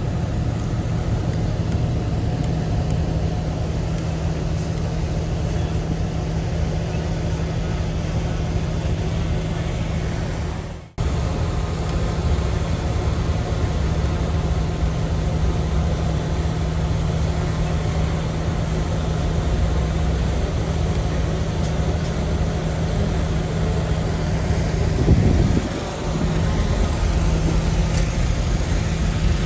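Heavy diesel engine of earthmoving machinery running steadily under work, with a brief rise and fall in revs near the end.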